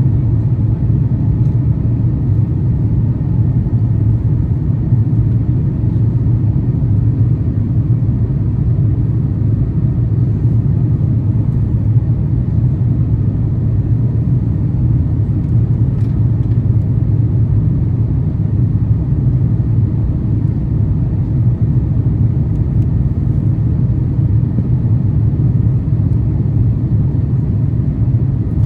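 Airbus A350-900 cabin noise: the steady low rumble of the Rolls-Royce Trent XWB engines and airflow, heard inside the cabin from a window seat.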